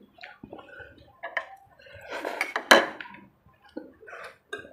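Forks and spoons clinking and scraping against a plate and bowl while eating, in scattered short clicks, with a louder clatter and sharp clink about two and a half seconds in.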